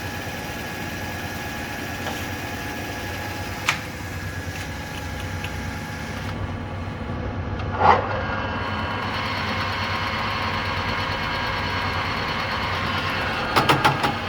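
Harrison M390 geared-head engine lathe running, a steady gearbox hum, with sharp clicks and knocks of its levers being worked: one about 4 seconds in, a louder one about 8 seconds in after which the running is a little louder, and a quick run of clicks near the end.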